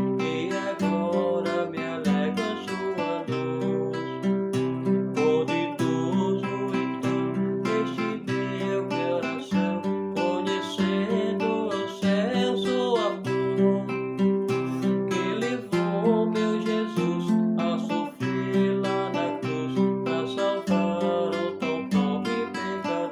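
Acoustic guitar (violão) playing a hymn, with plucked melody notes over continuous strummed and picked chords.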